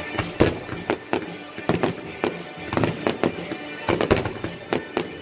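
Fireworks bursting in quick succession: a run of sharp, irregular bangs and crackles, several a second.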